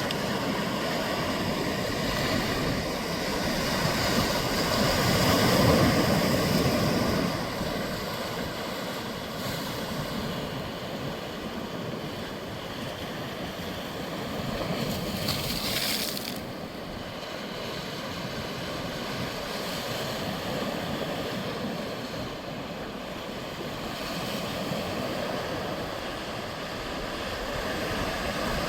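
Sea waves washing onto the shore in a steady rush of surf, swelling louder several seconds in and then easing off.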